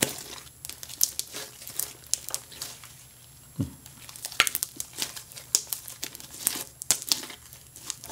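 Slime being kneaded and squeezed by hand, making irregular crackly, crinkling clicks and small pops.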